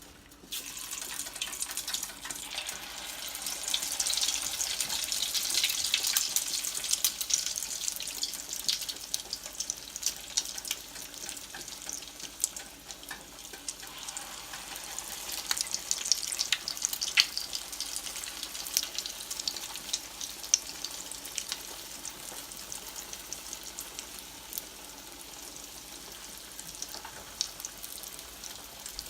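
Salmon patties frying in hot grease: a hissing sizzle with scattered crackles and pops, starting about half a second in and strongest over the next several seconds.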